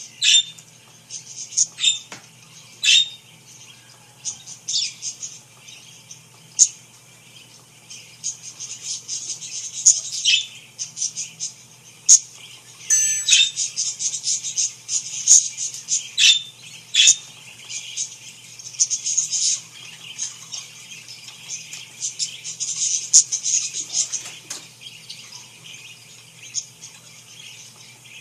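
Parakeets chirping and twittering in short, sharp calls, sparse at first and busier from about eight seconds in, over a steady low hum.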